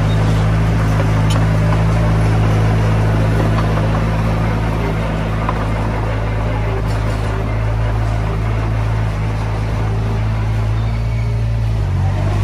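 Komatsu D20P bulldozer's diesel engine running steadily with a deep, even hum, the engine note shifting briefly near the end.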